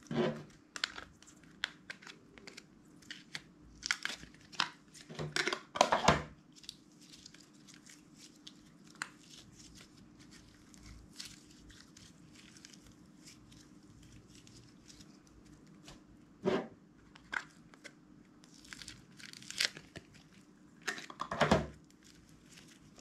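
Hands squeezing, stretching and pulling apart slime: clusters of quick crackling clicks, loudest about six seconds in and again near the end.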